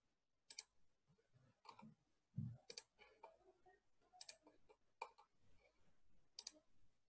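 Faint computer mouse clicks, about six of them spaced a second or so apart, with a soft low thump about two and a half seconds in.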